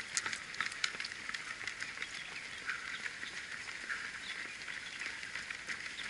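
Footsteps of many runners on an asphalt road: quick, irregular slaps of running shoes over a steady high hiss, the sharpest clicks near the start.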